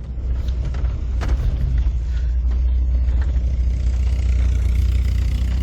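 Steady deep rumble from a car, building up over the first second or so and then holding.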